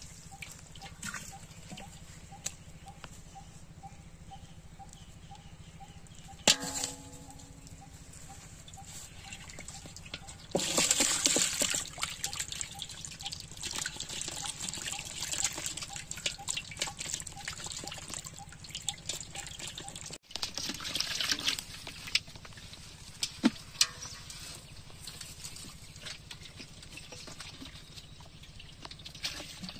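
Water dripping, trickling and splashing in an aluminium basin as live fish and water are emptied into it from clay pots and the fish flap about in the shallow water. A knock with a short ring comes about six seconds in, and louder splashing pours come a little after ten seconds in and again about twenty seconds in.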